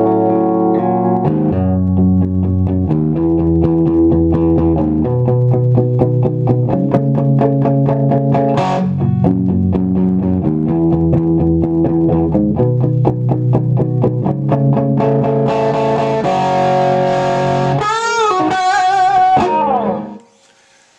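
1957 Gibson Les Paul Jr. electric guitar, its single P-90 pickup played through an amp: rhythmic picked chord riffs, then a few bent notes with vibrato near the end before the playing stops suddenly.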